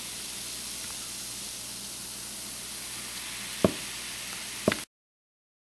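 Baking soda and vinegar fizzing as the foam bubbles over, a steady high hiss. Two small clicks come near the end, and then the sound cuts off suddenly.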